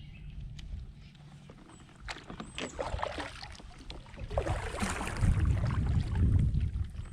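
Kayak on the water: a run of splashes and knocks from about two seconds in, building into louder water noise with a low rumble near the end.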